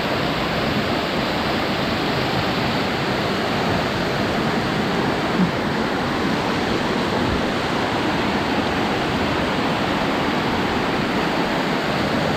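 Steady rush of a waterfall pouring close by.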